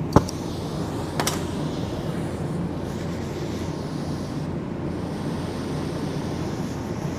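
Oxy-fuel torch flame running with a steady low roar. Two sharp knocks come through it near the start, the second about a second after the first.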